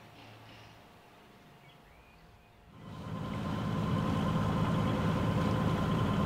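Faint at first; about three seconds in, a sailboat's inboard engine comes in, running steadily under way, with water and wind noise around it.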